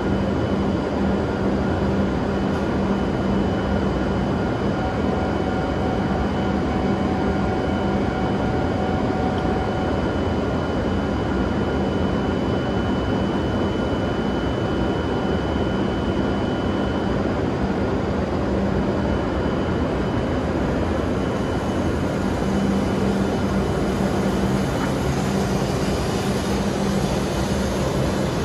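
W7-series shinkansen train standing at the platform, its onboard equipment giving a steady whirring hum with a low drone and faint high tones.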